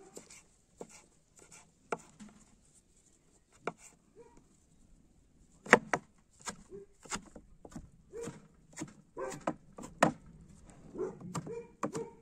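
Irregular sharp knocks and clicks, the loudest about six seconds in and again about ten seconds in, with short low sounds in between.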